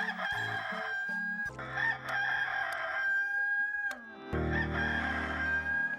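Rooster crowing, three long, drawn-out crows one after another: the Hollywood Edge stock effect 'Bird Rooster 2 Crow'.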